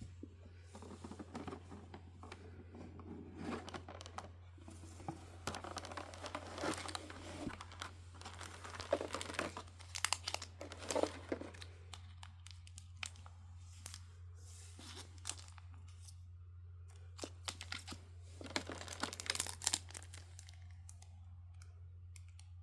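Packaging from a Pokémon trading card Elite Trainer Box being torn open and crinkled in irregular spurts, over a steady low hum.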